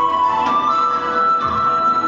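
Chinese-style instrumental dance music: a flute-like melody of long held notes stepping between pitches, over sustained strings.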